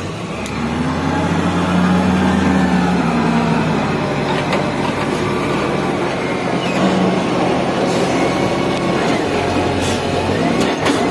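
Mitsubishi Fighter truck's diesel engine running, heard from inside the cab: it builds up over the first couple of seconds, then holds steady. A few sharp clicks near the end.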